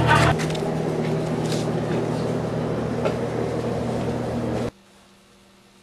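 A steady mechanical drone, like a running motor, which cuts off abruptly near the end, leaving only a faint hum.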